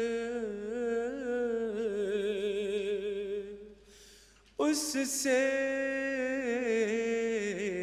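Unaccompanied male voice singing an Urdu nazm in a slow chant. He holds a long, wavering note, breaks off briefly about four seconds in, then starts a new line.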